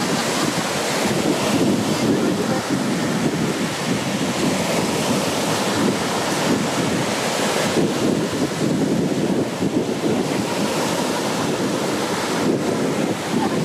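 Black Sea waves breaking steadily on the shore, with wind buffeting the microphone.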